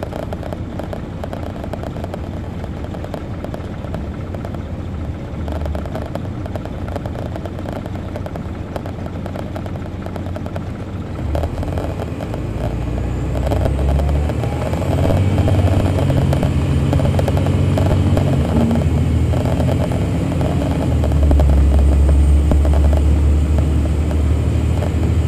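A 2002 MCI D4000 coach's Detroit Diesel Series 60 engine, heard from the rear of the cabin as the bus runs along. It is moderate at first, then grows louder and deeper from about halfway through, pulling harder.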